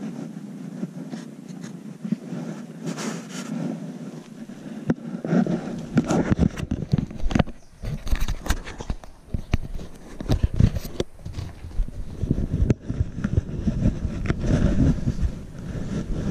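Close-up rubbing and rustling of a handheld camera against fur and clothing, with irregular knocks and thumps from about five seconds in.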